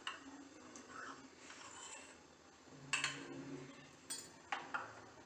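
A steel spoon clinking and scraping against a ceramic bowl as cooking oil is poured out into a pan, giving a few sharp clicks, the loudest about three seconds in and several more near the end.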